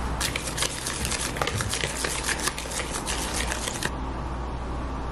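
Pancake batter being stirred in a bowl: a quick, steady run of clicks from the utensil against the bowl that stops about four seconds in.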